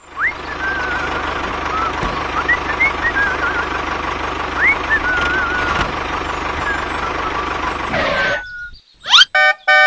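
Tractor engine chugging at idle with birds chirping over it; it cuts off abruptly after about eight seconds. Near the end come quick rising whistle glides and the start of a steady horn-like tone.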